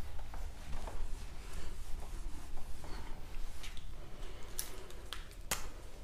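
Marker pen writing on a whiteboard: a run of short scratchy strokes, with a few sharper ones near the end.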